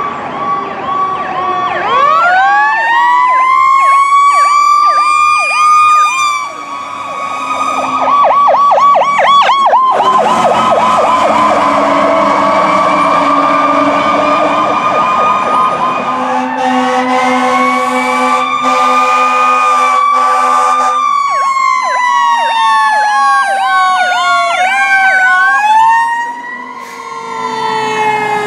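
Emergency vehicle sirens, several sounding together, alternating between slow rising and falling wails and fast yelps. A long air horn blast sounds in the middle for about five seconds. The sound changes abruptly a few times.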